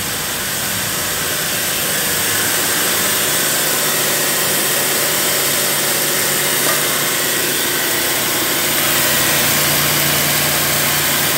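Nissan Sunny's engine idling steadily, a continuous hum that gets a little louder during the first couple of seconds and again near the end.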